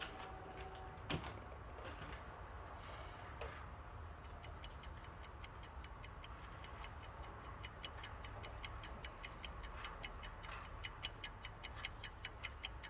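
Rapid, evenly spaced clock ticking, several ticks a second, fading in about four seconds in and growing louder toward the end, with a single click of plastic handling about a second in.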